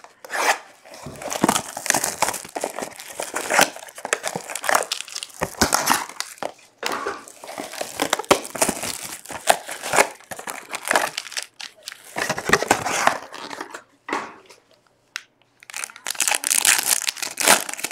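Plastic wrap and foil trading-card pack wrappers crinkling and being torn open by hand, in irregular crackling bursts with a short lull about 14 seconds in and the loudest burst near the end.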